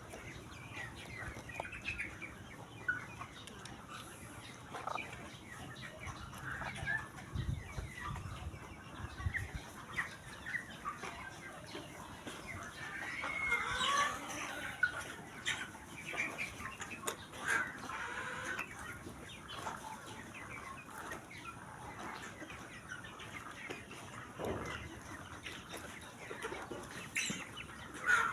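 A flock of chickens in a coop clucking, with many short scattered calls. About halfway through the calls grow louder and busier, with some wing flapping.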